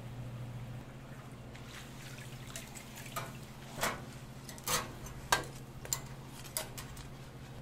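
Hot oil bubbling in a commercial deep fryer over a steady low hum. Then a fried pork chimichanga is lifted out with metal tongs onto a wire draining rack, giving several sharp clicks and pops in the second half.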